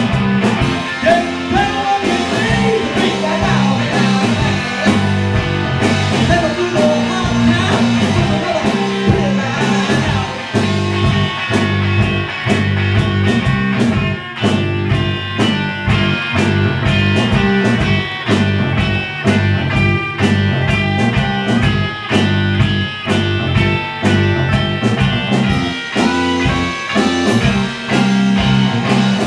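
A live rock band playing, with electric guitars over a steady drum beat.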